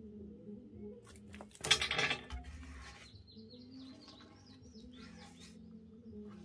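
A loud metallic clatter about a second and a half in, from iron fire tools knocking against the firebox and cauldron of a wood-fired stove. Birds chirp a few times afterwards.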